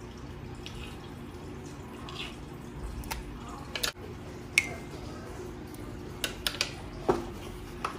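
Liquid batter in a large pot dripping and squishing as it is handled, with several sharp taps and clicks of a utensil from about three seconds in, one of them ringing briefly. A steady low hum runs underneath.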